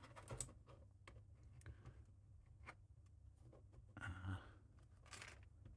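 Faint, scattered clicks of small plastic Lego-type bricks being handled and pressed into place, with a soft breath about four seconds in.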